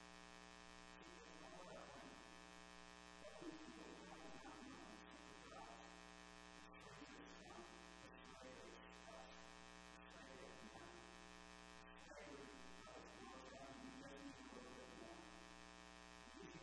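Near silence: a steady electrical hum, with faint indistinct sounds coming and going.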